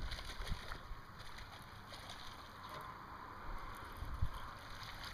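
Wind rumbling on the microphone in an open aluminium john boat, with a few low bumps and faint scattered ticks as a frog lure is reeled in across weed-covered water.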